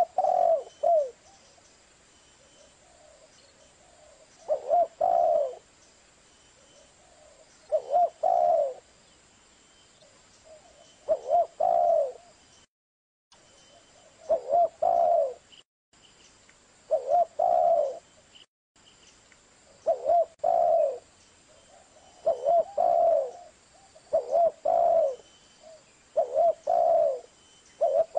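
Spotted dove (Streptopelia chinensis) cooing: short low phrases of two or three notes, repeated every two to three seconds, about ten in all. The sound cuts out completely for a moment a few times.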